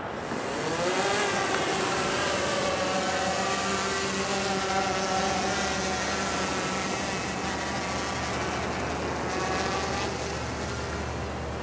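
Quadcopter drone's propellers whining, rising in pitch about a second in as it is hand-launched carrying a baited fishing line out, then holding with small shifts in pitch and fading near the end as it flies away. Surf washes underneath.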